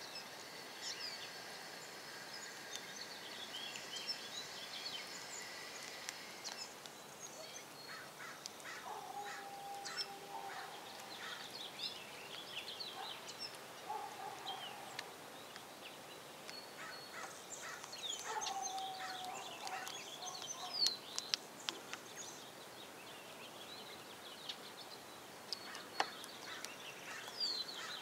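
Several small birds chirping and twittering, with a few longer, steady-pitched lower calls about a third and two-thirds of the way through. Scattered sharp taps, the loudest a few about three quarters of the way in.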